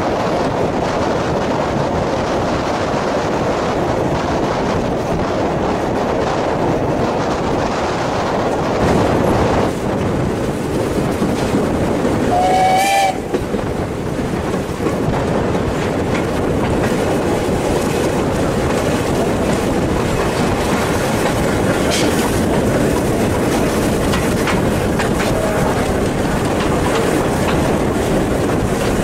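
Steam train running along the track, heard from inside a coach with the window open: a steady rush of wheel and track noise. About twelve seconds in, the locomotive gives one short whistle.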